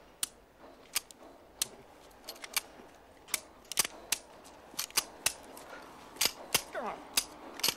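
A pistol misfiring again and again: a long string of sharp metallic clicks as the trigger is pulled and the action worked, but no shot goes off.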